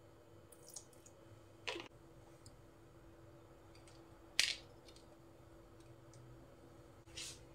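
A few short, sharp clicks and taps from handling spice containers while ginger and garlic powder is sprinkled onto raw fish steaks in a glass bowl; the sharpest click comes a little past halfway. A steady faint hum runs underneath.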